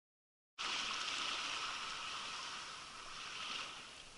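Silence for about half a second, then shallow water washing over a pebble shore cuts in: a steady hiss of small wavelets that swells briefly near the end.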